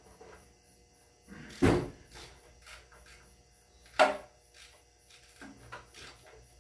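Two loud knocks about two seconds apart, with lighter clicks and taps between them, from hands-on work with tools on a diesel engine hanging from a chain hoist.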